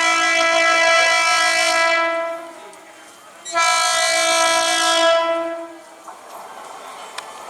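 Horn of a Medha-built EMU local train sounding two long blasts of a single steady note, the second starting about a second after the first ends. After the blasts, the quieter noise of the train carries on.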